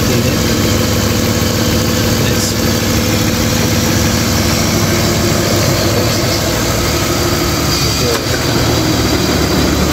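A 1995 BMW 320i's engine idling steadily, with the bonnet open, giving a constant low hum.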